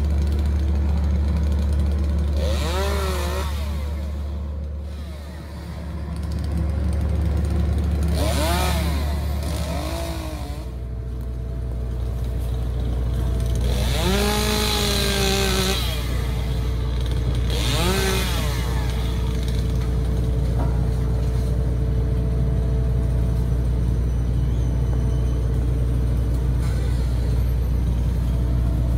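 Combine harvester's diesel engine running with a steady low drone as the machine creeps along a narrow track. Four brief rising-and-falling whines sound over it.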